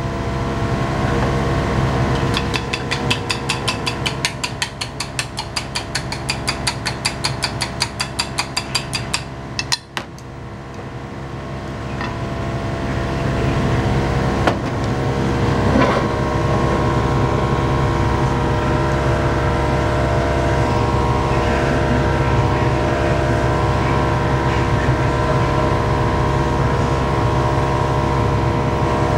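Kitchen exhaust fan running loudly, a steady rushing drone with a hum. For several seconds near the start a rapid, even run of sharp clicks rides over it, and after a short dip the fan noise swells back up.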